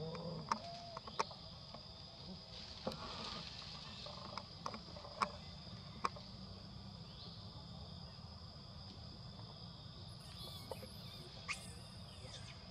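Steady high-pitched drone of forest insects, with a few sharp clicks scattered through the first half and brief high chirps about ten seconds in.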